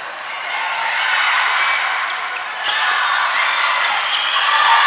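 Volleyball being played in a gymnasium: sharp smacks of the ball being hit, the clearest about two and a half seconds in, over a steady hubbub of players' and spectators' voices.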